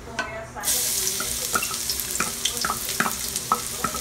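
Chopped garlic hitting hot oil in a wok: a sizzle starts suddenly under a second in and carries on. Over it come sharp taps and scrapes of the wooden spatula against the wok as the garlic is stirred.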